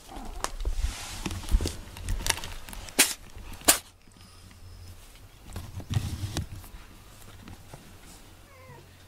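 Camera handling noise: about five sharp knocks with rubbing in the first four seconds, then a softer bout of bumping and rustling about six seconds in.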